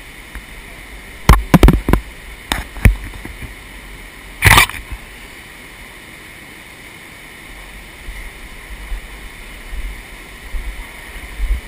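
Several sharp knocks in quick succession about a second in, then a single brief, louder burst of noise, over a steady background hiss.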